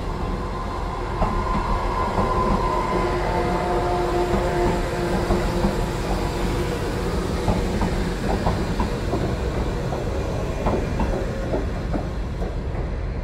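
JR 415-series electric multiple unit moving through the station, running with a steady whine in the first few seconds. A run of irregular wheel clicks over rail joints and points follows.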